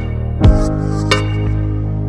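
Background music: sustained bass and chord notes with a deep drum hit about half a second in.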